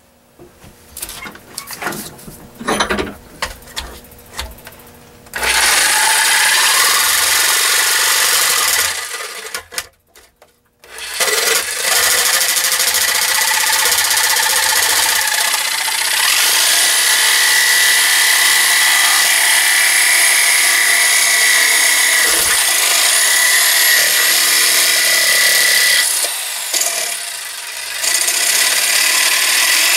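DeWalt jigsaw with a metal-cutting blade sawing through a metal plate clamped in a vise. After a few seconds of handling clicks and knocks, the saw starts about five seconds in and runs steadily, stopping briefly around ten seconds and easing off for a moment near the end.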